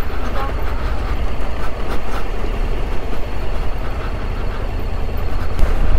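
Steady rumble of a motorcycle being ridden slowly: engine and wind noise on the rider's microphone.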